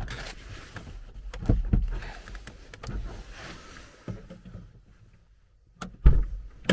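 A car's plastic interior trim panel being pulled and worked loose by hand: scattered knocks, thumps and rubbing. It goes quieter a little past halfway, then a sharp knock comes near the end.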